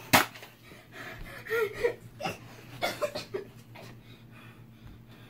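A single sharp pop just after the start, then a child's gasps and breathy laughter that trail off.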